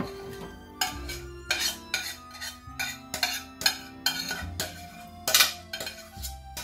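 A metal spoon scraping and clinking against a stainless steel saucepan, about twice a second, as beef mince sauce is spooned out of the pan. Faint background music runs under it.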